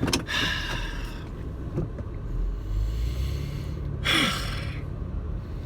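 Steady low rumble of a car heard from inside the cabin, swelling for a second or so in the middle. There are two heavy breathy exhales, one right at the start and one about four seconds in, the second ending in a short falling voiced sound.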